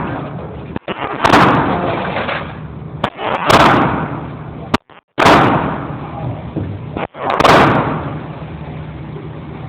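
Ruger .22 rimfire handgun firing single shots, four of them about two seconds apart, each loud crack followed by a brief ringing tail.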